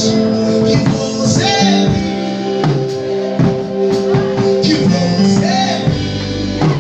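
Music: a song with singing over guitar and a steady beat with tambourine-like percussion.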